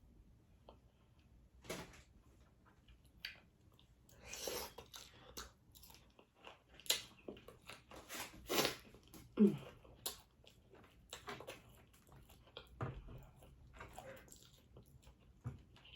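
Close-miked mouth sounds of someone eating boiled seafood: soft chewing with scattered clicks and crunches, plus one brief falling vocal sound about halfway through.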